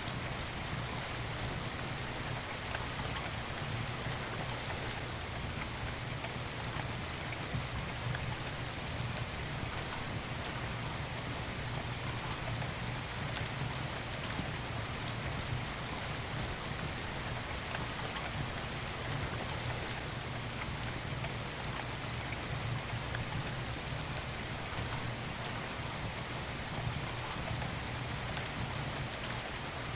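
Steady, even rain, with a few faint clicks scattered through it.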